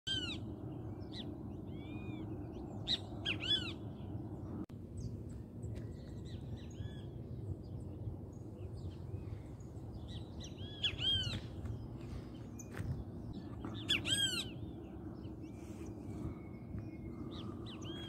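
Great kiskadee (bem-te-vi) calling: sharp arching notes in short groups of two or three, repeated several times, over a steady low background noise.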